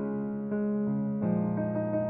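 Background music: soft electric piano playing sustained chords that change about half a second in and again past the middle.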